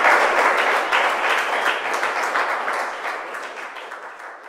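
Audience applauding, many hands clapping together, loud at first and then dying away toward the end.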